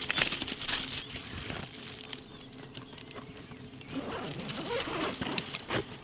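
Hands handling a Tragopan camera backpack on stony ground: fabric rustling with scattered small clicks and scrapes, a little busier about four seconds in.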